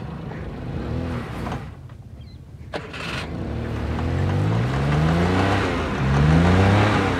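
Maruti 800's small three-cylinder petrol engine running. After a brief lull with a click, it revs up twice, its pitch climbing in two long sweeps.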